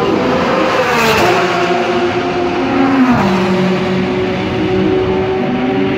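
Race car engines running in the pit lane, several engine notes overlapping: one rises and falls in pitch in the first second or so, another drops in pitch about three seconds in and then holds steady. A short hiss comes about a second in.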